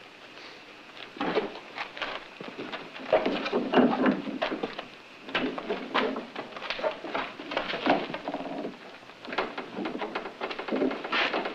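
An irregular run of knocks, thuds and scuffling, starting about a second in and loudest around the middle.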